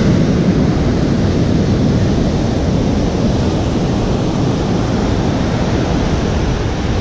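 Big ocean surf breaking and foam washing up the sand in a steady rush, with wind rumbling on the microphone.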